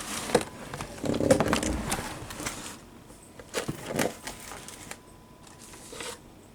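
Packaging and the box of a cotton candy machine being handled during unboxing: a stretch of rustling and crinkling in the first couple of seconds, then scattered clicks and knocks, with a cluster about four seconds in.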